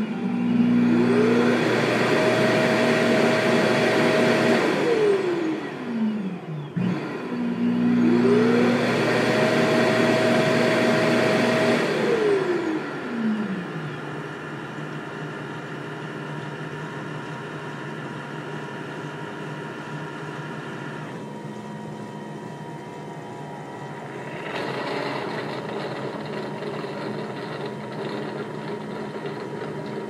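ECOVACS DEEBOT T30 OMNI docking station auto-emptying the robot's dustbin. Its suction fan runs twice in loud bursts of about six seconds, each whining up in pitch, holding, then winding down. After that the station settles into a quieter, steady machine hum for the mop-washing cycle, and the tone shifts twice in the later part.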